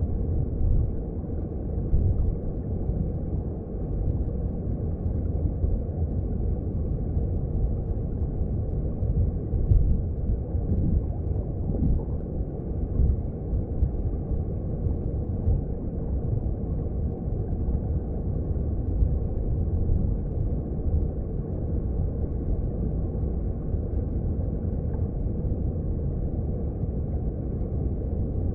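Underwater sound of a mountain stream: a steady low rumble and gurgle of flowing water heard through the water, deep and muffled, with small irregular swells.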